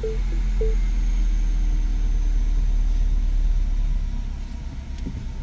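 Mini Cooper R56 engine just started and running at idle: a steady low rumble that swells over the first few seconds and eases near the end. A few short beeps sound in the first second.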